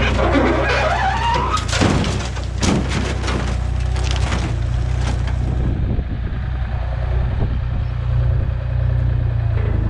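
A truck engine running steadily. In the first second a squeal rises in pitch, then a run of sharp knocks and clanks follows over the next few seconds.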